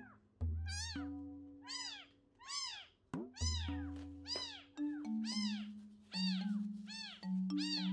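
Baby kitten mewing over and over, about ten thin high-pitched cries that each rise and fall in pitch, over soft background music with long held notes.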